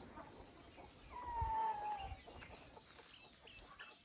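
A domestic fowl gives a single drawn-out call about a second in, lasting about a second and falling slightly in pitch.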